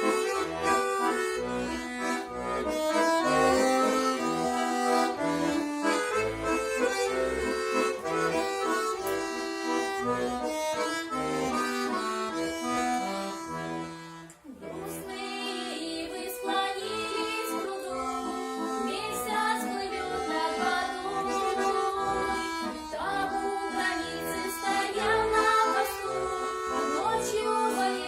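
Accordion playing a melody over chords, with a brief break about halfway through before the playing resumes.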